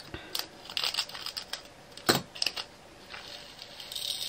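Tiny resin diamond-painting drills rattling as they are poured from a plastic bag through a plastic funnel tray into a small storage pot: a run of light ticks and clicks, the sharpest a little after two seconds in.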